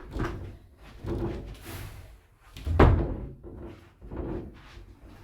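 A door being closed, shutting with a heavy thud about three seconds in, with several softer knocks and rustles around it.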